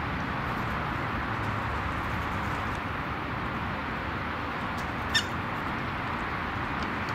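Steady outdoor background hiss, with one short sharp click-like sound about five seconds in.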